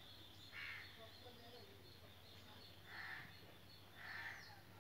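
A bird calling faintly: three short, harsh calls spread a second or so apart.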